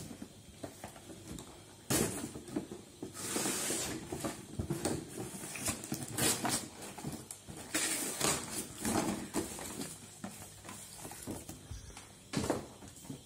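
Cardboard toy box with plastic packaging being handled and opened by hand: irregular rustling and scraping with scattered sharp clicks and knocks, busiest about two seconds in and again around eight seconds in.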